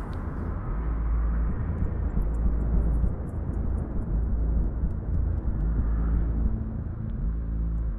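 Car cabin noise while driving: a steady low rumble of engine and tyres on the road. About six seconds in, a steady low hum joins it.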